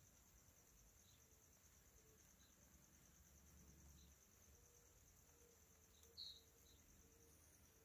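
Near silence with faint, steady insect trilling and a few short high chirps, the loudest about six seconds in.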